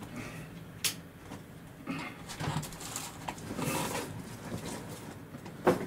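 Light clicks and rustles from the camera being handled, with a sharper click about a second in and another near the end.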